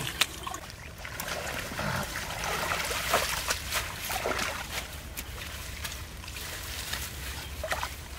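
Hands sloshing and splashing in shallow muddy water, with trickling water and irregular wet slaps and rustles as clumps of water plants are pulled up.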